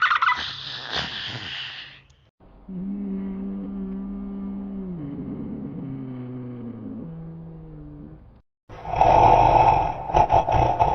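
Homemade dinosaur sound effects: a harsh, rapidly pulsing roar, then a long low growl that steps down in pitch twice, then another harsh pulsing roar starting near the end.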